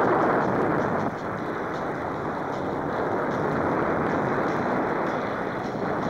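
Steady, loud roar of heavy surf breaking and churning, dipping slightly about a second in.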